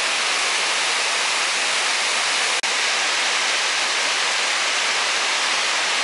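Steady rush of fast-falling mountain water, a dense even hiss with no rhythm, dropping out for an instant about two and a half seconds in.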